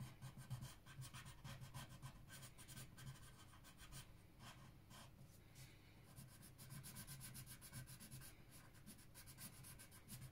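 Faint scratching of a green coloured pencil shading on paper in quick back-and-forth strokes, easing off briefly midway and then picking up again.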